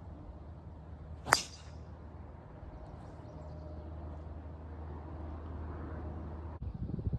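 A golf club striking the ball on a tee shot: one sharp crack about a second in, over a low steady rumble.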